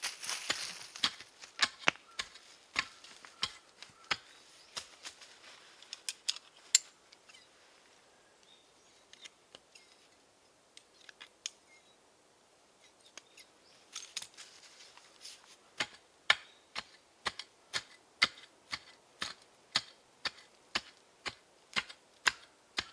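A run of sharp, dry clicks or snaps, bunched together at first, sparse in the middle, then coming evenly about twice a second.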